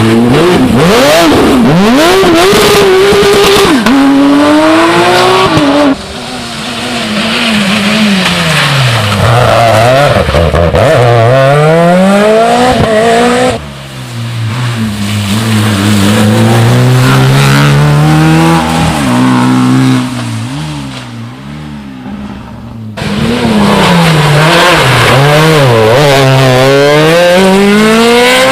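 Rally car engines at full throttle, pitch climbing and dropping repeatedly through gear changes as cars run a test stage. The sound jumps abruptly three times as one pass gives way to another.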